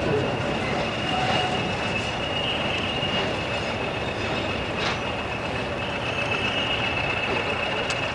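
Preserved Class 20 diesel locomotive 20166 and D7535 running light engine as they approach, a steady diesel rumble with a steady high-pitched squeal throughout.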